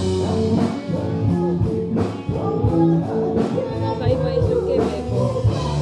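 Background music: a rock-style track with guitar and a steady beat.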